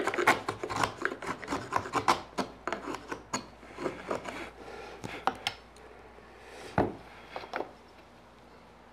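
Flat chisel pushed by hand, paring wood from the floor of a notch in a wooden muntin: a run of short scraping strokes, about two or three a second, thinning out after about five seconds, with a few sharper strokes around seven seconds, then stopping.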